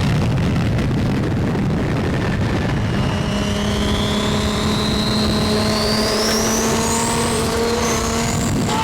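A car running hard at speed with a heavy rush of wind and road noise. From about three seconds in, a steady engine note and a thin high whine come up, and the whine rises slowly in pitch over several seconds.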